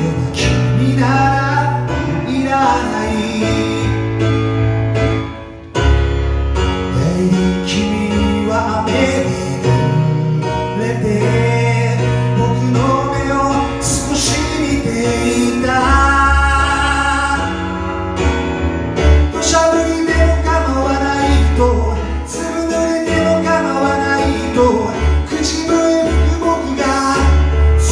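Roland RD-700-series stage piano played live through the PA, a ballad's chords and melody with a full bass line, at times with a man singing along. The playing drops away briefly about five seconds in, then comes back in fully.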